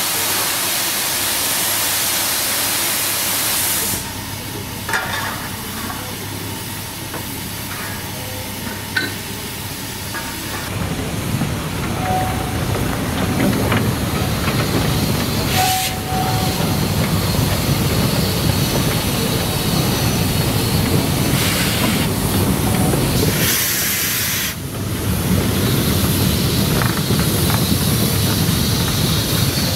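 Narrow-gauge steam locomotive. There is a strong hiss of escaping steam for the first few seconds, then quieter hissing with a few clicks, then the locomotive runs with a low rumble under steady steam hiss. Another short burst of hiss comes about three-quarters of the way in.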